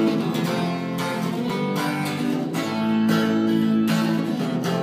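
Acoustic guitar strummed in a steady rhythm, about two strokes a second, playing an instrumental passage between sung verses of a song.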